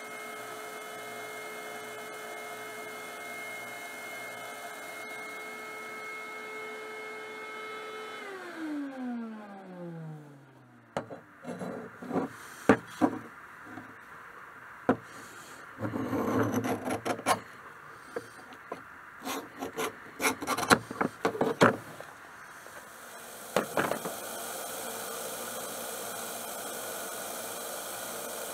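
A small bench belt sander running with a steady whine, then switched off and winding down in a falling tone about eight seconds in. After that come scattered clicks and knocks of a steel blade and calipers being handled on a wooden bench, and near the end a steady hiss comes up.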